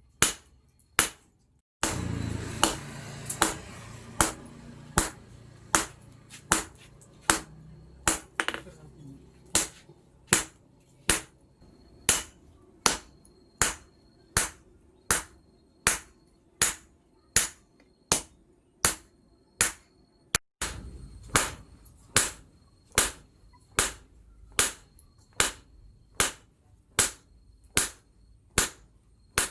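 Hammer blows on a steel knife blank on an anvil, evenly paced at about one and a half strikes a second, each with a short metallic ring. A rushing noise comes in about two seconds in, fades away, and returns about twenty seconds in.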